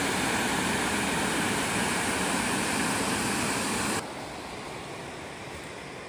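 Water pouring over a low concrete dam, a loud steady rush of whitewater. About four seconds in it drops suddenly to a quieter, more distant rush.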